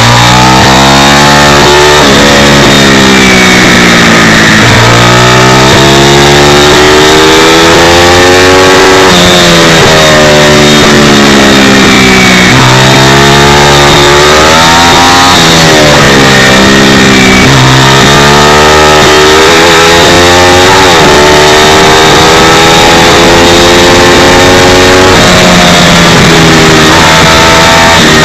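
Pit bike's small single-cylinder four-stroke engine at racing speed, heard from a camera on the bike: its pitch climbs and drops back again and again, every three to five seconds, through gear changes and throttle lifts. Rushing wind noise covers the microphone, and the recording is loud enough to distort.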